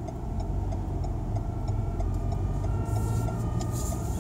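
Car engine and road rumble heard from inside the cabin while driving through a junction, with the engine pitch rising a little partway through as the car pulls away. A regular light ticking runs underneath, typical of the turn indicator during the left turn.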